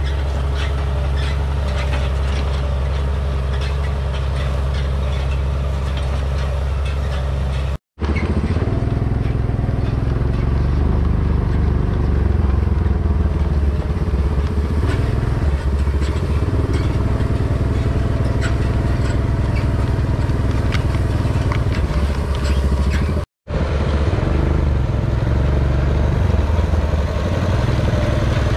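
Farmall 806's six-cylinder diesel engine running steadily while the tractor pulls a side-delivery bar rake through hay, with light rattling from the rake. The sound cuts out completely twice, very briefly.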